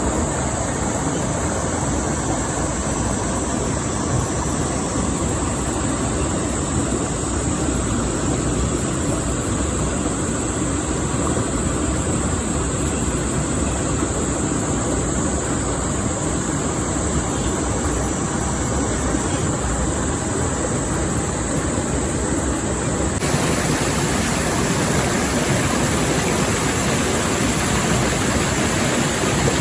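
Steady rush of flowing river water, becoming slightly brighter and louder for the last several seconds.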